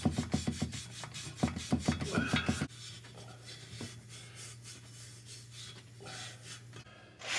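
A small wire bore brush scrubbed by hand in and out of a valve guide in a Caterpillar Sixty cylinder head, fast scratching strokes that stop about two and a half seconds in.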